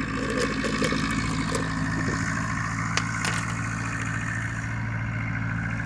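Tractor engine running at a steady, even pitch as it comes up the road.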